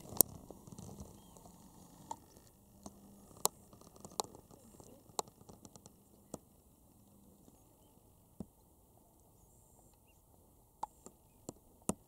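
Faint background with a dozen or so short, sharp clicks and ticks at uneven intervals, a few bunched near the end.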